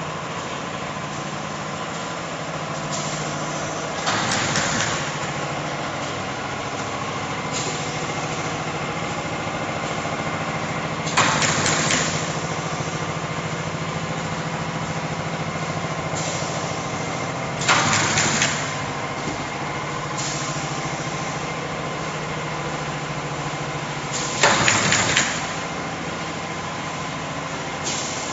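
Automatic folder gluer machine running with a steady mechanical hum. About every six to seven seconds, four times in all, a loud rushing burst of noise lasts about a second.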